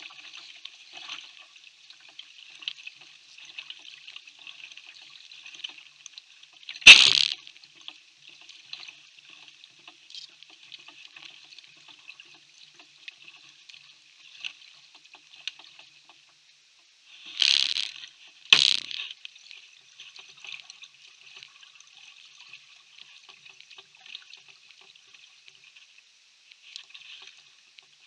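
Kayak paddle working slow creek water: a steady faint trickle and drip, broken by three louder paddle strokes, one about a quarter of the way in and two in quick succession a little past the middle.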